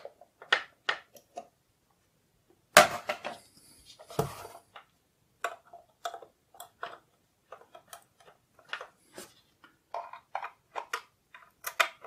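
Scattered clicks and knocks of a Timex Sinclair 1000's plastic case and its cable plugs being handled as the cables are swapped between computers, with a couple of louder knocks about three and four seconds in.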